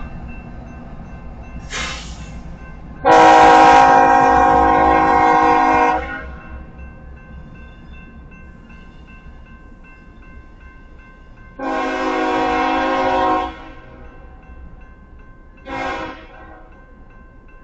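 Diesel locomotive horn blowing for a grade crossing: a brief blip, a long blast of about three seconds, another long blast and a short one, several tones sounding together. A low diesel engine rumble runs underneath as the light engines pass.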